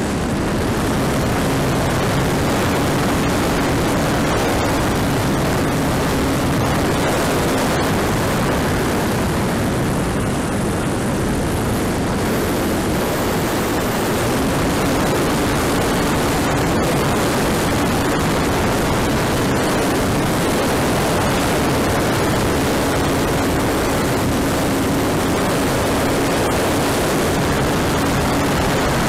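Rushing airflow noise on an RC model Corsair's onboard camera in flight, with the model's motor and propeller humming steadily underneath. The hum fades out for several seconds about a third of the way in, then comes back.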